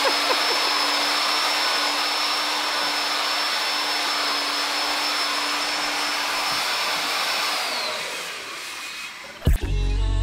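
Electric motor-driven shop machine spinning up, running steadily with a high whine over a rushing noise, then spinning down near the end. A sharp click follows.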